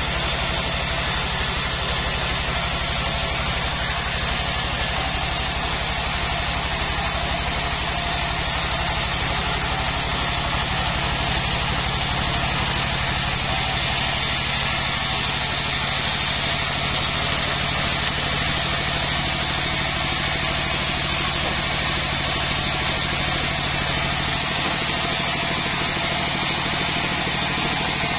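Vertical band sawmill running steadily, its blade ripping a long mahogany timber lengthwise as the log is pushed through by hand: an even machine hum with the hiss of the cut over it.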